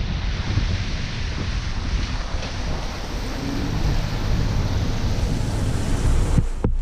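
Steady road noise of a car driving in the rain: a heavy low rumble with the hiss of wet tyres and wind buffeting the microphone. Just before the end it dips briefly, with a couple of sharp clicks.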